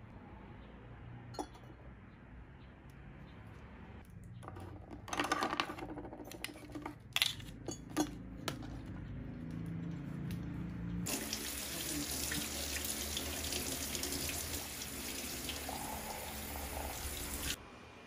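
Kitchen tap running into a sink from about eleven seconds in, a steady rush that cuts off sharply near the end, as new wooden spoons and a fork are washed. Before it, plastic packaging rustles and a few sharp light knocks.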